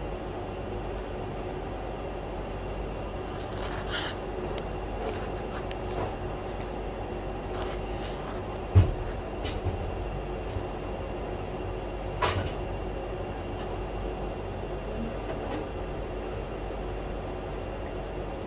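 Clicks and knocks of a gas chromatograph's autosampler injector tower being handled and opened, with one heavy thump about nine seconds in and a sharp click about three seconds later, over a steady hum of lab instruments.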